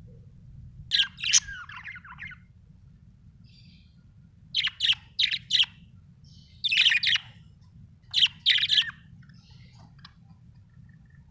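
Budgerigar chirping in four short bursts of quick, sharp chirps with pauses between them, over a steady low hum.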